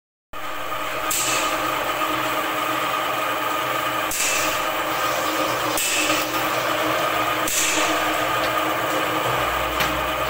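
Steel scriber point of a trammel scraping across a steel sheet as it marks out an arc, a short scratch every second or two, over a steady mechanical hum.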